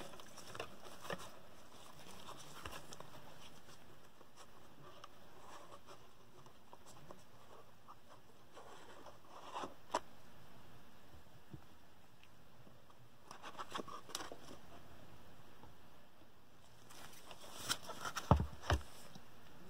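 Faint handling noises of a cardboard trading-card box and a stack of cards worked by gloved hands: scattered scrapes, rustles and light clicks, with a few louder knocks near the end.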